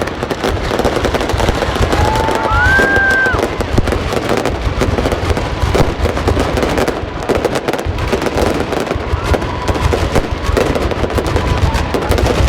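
Fireworks going off continuously in a dense run of bangs and crackling. A short high whistle-like tone sounds about two to three seconds in.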